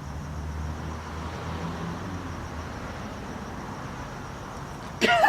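A car engine's low, steady hum, fading away after about three seconds.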